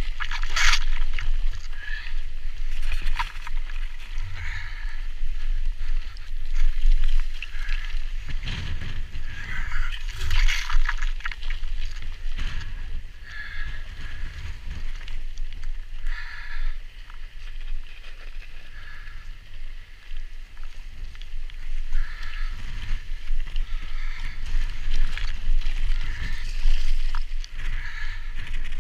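Mountain bike descending a rocky trail: tyres crunching and skidding over loose scree and rock slabs, with the bike rattling and clattering over the bumps. A steady low rumble runs underneath.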